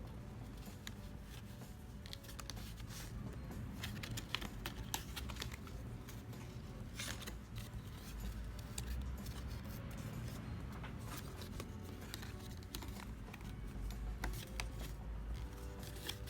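Cardstock being handled and folded: scattered paper rustles, creases and light taps, over faint background music.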